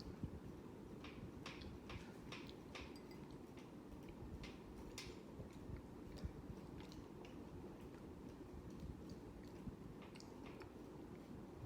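Hampton Bay Huntington III ceiling fan running with a faint low hum and an irregular, unevenly spaced clicking.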